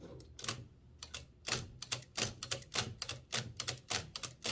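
Blickensderfer typewriter's carriage release worked over and over, the release doubling as a spacebar so the carriage steps along: a fast run of sharp mechanical clicks, about five a second, starting about a second in.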